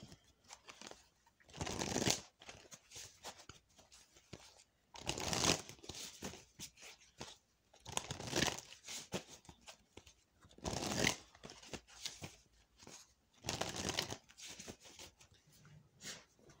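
Oracle card deck being shuffled by hand: five papery swishes about every three seconds, with light clicks of cards between them.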